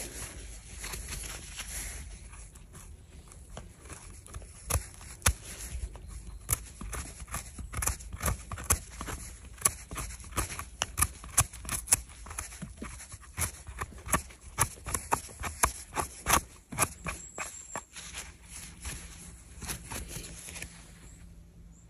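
A knife trimming freshly picked bolete mushrooms: a long run of irregular sharp clicks and snicks, thickest in the middle and thinning out near the end.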